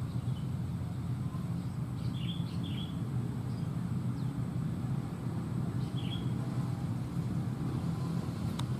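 Steady low rumble, like a distant motor, with a few short high bird chirps: two about two seconds in and one near six seconds, then a single sharp click near the end.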